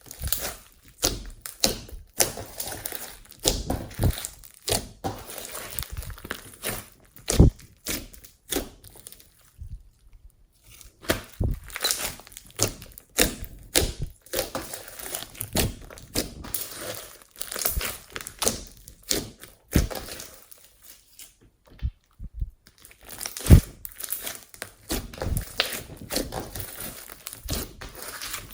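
Slime being squished, pressed and stretched by hand: dense, irregular sticky pops, clicks and crackles, with brief pauses about ten seconds in and again after about twenty seconds.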